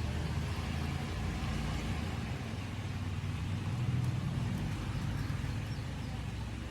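Steady low rumble of a motor vehicle's engine running, swelling slightly about four seconds in.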